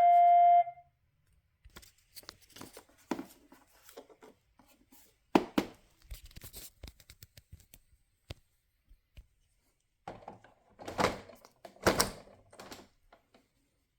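An iRobot Roomba's beep, the last note of a rising tune, cuts off within the first second. Irregular clicks, knocks and scraping rustles follow, with louder bursts near the middle and toward the end, as the robot is handled.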